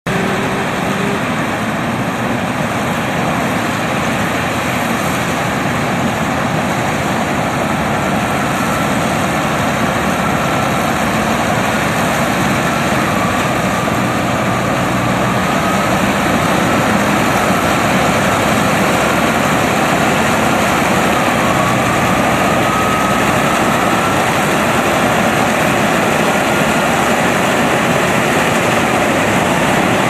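SINO-AGRI BOYO 4YZ-4B corn combine harvester working through standing maize: its engine and harvesting machinery running steadily, growing a little louder as the machine approaches, with a faint whine rising in pitch now and then.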